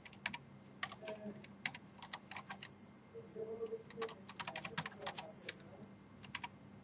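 Typing on a computer keyboard: faint, irregular key clicks, with a quick run of keystrokes about two-thirds of the way through as a formula is keyed in.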